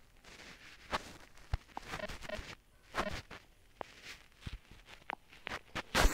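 Scattered soft clicks, taps and rustling, like a smartphone being held and tapped on its screen, with a louder rustle about six seconds in.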